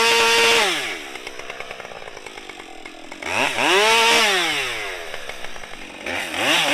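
Husqvarna 550 XP two-stroke chainsaw held at high revs, then dropping to idle about half a second in. A couple of seconds later it is revved up and falls back to idle, and it is revved again near the end.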